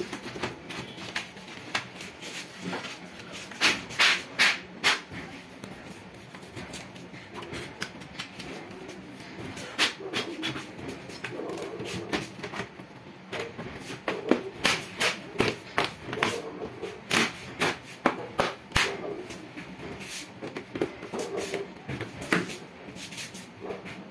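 Irregular clicks, knocks and rubbing of plastic and metal parts being handled as the back cover of an HP all-in-one computer is fitted onto its chassis and pressed into place. The sharpest clicks come in clusters about four seconds in and again between about 14 and 19 seconds.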